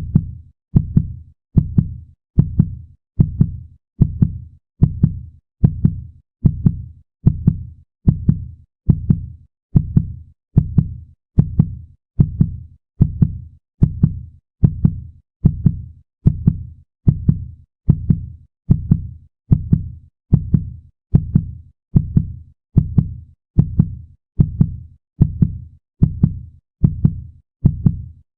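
Heartbeat sound effect: a steady lub-dub rhythm of paired low thumps, a little more than one beat a second.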